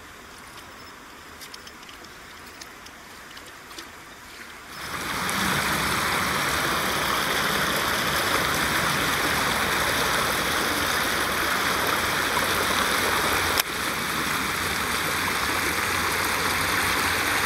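Water rushing and splashing, a steady loud noise that comes in suddenly about five seconds in, with one sharp click near the middle. Before it, only a few faint ticks over a low background.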